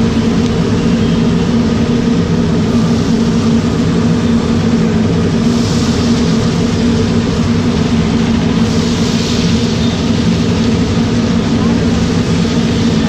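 Potato chips deep-frying in a large wok of bubbling oil, a steady sizzle that swells briefly twice, over a loud, steady low drone.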